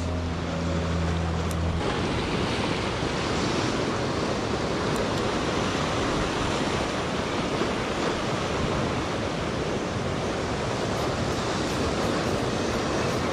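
Ocean swell surging and washing over a rock ledge, a steady rushing noise. Low steady tones stop about two seconds in.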